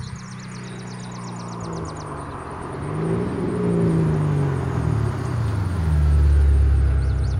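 An SUV drives up on a country road, its engine and tyres growing louder and passing close with the engine note rising and then falling. It pulls up and sits with its engine running, a steady low rumble in the last second or so.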